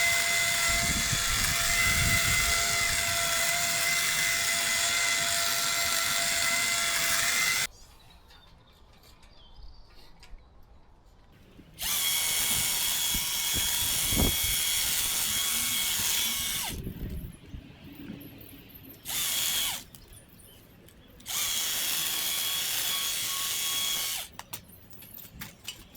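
Power hedge trimmer running at a steady high pitch, switched on and off in bursts: one long run of about eight seconds, then a run of about four seconds, a brief blip and a run of about three seconds, with quiet gaps between.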